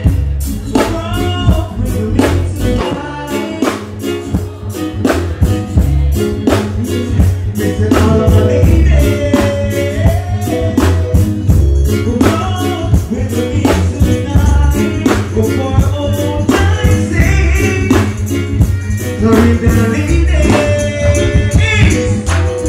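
Live stage performance: a man singing into a handheld microphone over a loud backing track with a steady drum beat and heavy bass, played through the stage PA.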